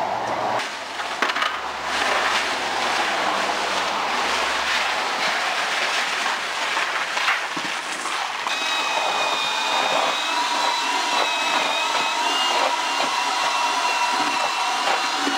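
Dry sand and gravel poured from bags into a plastic bucket and tub, a steady gritty rushing with rustling and knocks of handling. From about eight seconds in, a steady high whine with a slightly wavering pitch runs underneath.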